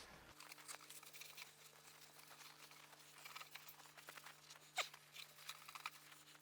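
Near silence: a faint steady hum with a few small clicks and rustles.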